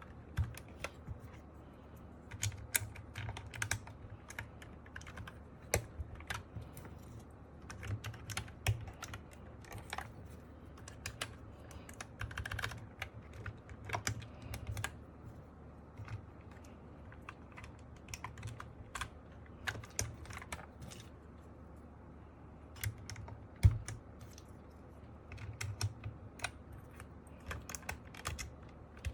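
MK870 mechanical keyboard with Sky Panda linear switches: keys pressed at an irregular pace, giving scattered clacks in small clusters with short pauses, and one louder knock about four-fifths of the way through.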